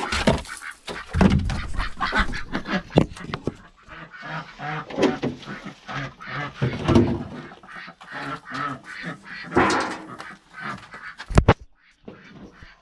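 Ducks quacking repeatedly, with a single sharp knock near the end.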